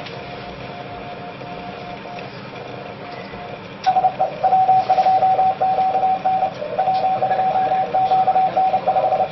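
Morse code (CW) from an amateur radio transceiver: a single beep tone over a hiss of band noise. It is faint and steady at first, then from about four seconds in it is loud and keyed in quick dots and dashes.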